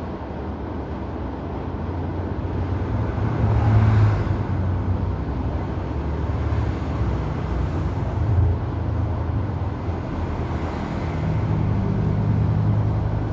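Steady low rumbling background noise, swelling about four seconds in and again near the end.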